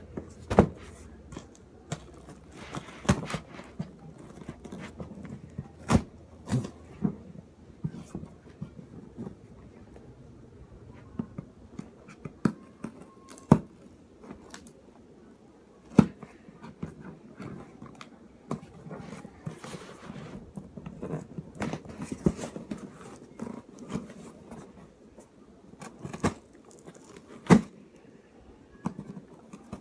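A shipping box and its packaging being handled and opened: scattered sharp taps and knocks, with rustling and scraping in between.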